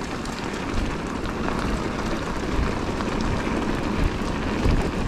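Mountain bike riding over a dirt trail: a steady rush of tyre and rattle noise with a deep rumble, without a break.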